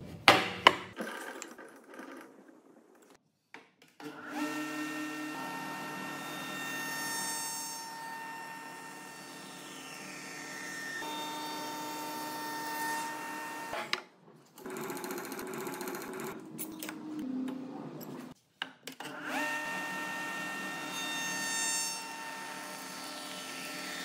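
Spindle shaper running a Freud convex radius cutter, its steady whine mixed with the rough noise of the cutter biting into a wooden beam as flutes are cut. A few sharp knocks come in the first second, and the machine sound breaks off abruptly twice in the middle.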